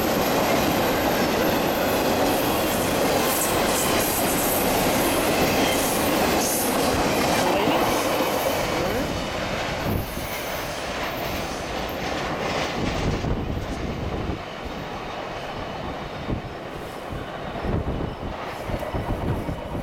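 A long intermodal freight train's cars rolling past at speed, a steady rumble with wheels clattering over rail joints. The noise drops after about ten seconds and thins to separate clacks as the end of the train passes and recedes.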